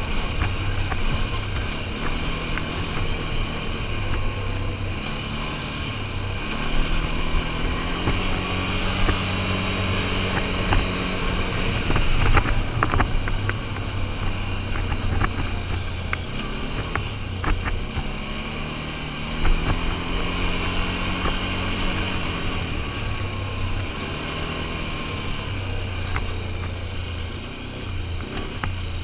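Quad bike (ATV) engine running while being ridden along a dirt road, its note rising and falling with the throttle, with a high whine that follows it. A few knocks come about halfway through.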